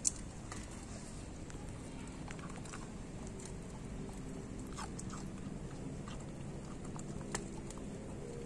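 A dog chewing and gulping chunks of roast pork from a stainless steel bowl, with a few sharp clicks, the loudest right at the start and another about seven seconds in.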